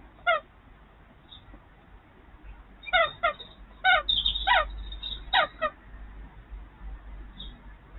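A bird calling with short, slightly falling calls, one near the start and then a quick run of several in the middle.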